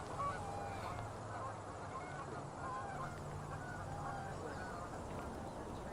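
Birds calling faintly: many short, overlapping calls spread throughout, over a low steady background hum.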